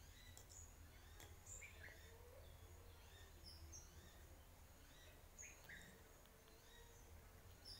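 Near silence: faint, scattered short chirps of birds over a low steady background hum.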